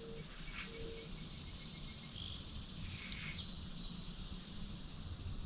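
Quiet outdoor ambience: a faint, high, evenly pulsing insect trill over low steady background noise.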